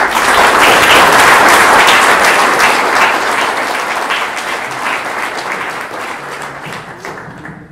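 Audience applauding, breaking out suddenly and slowly dying away.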